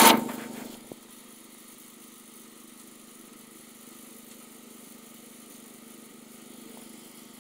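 Wheel Horse 310-8's Kohler K241 single-cylinder engine being shut off: its sound dies away within the first second and there is a single click. After that only a faint steady hum is left.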